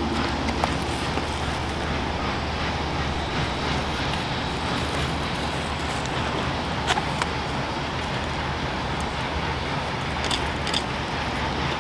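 Steam locomotive hauling a passenger train away, a steady rumble of the running train with a few sharp clicks.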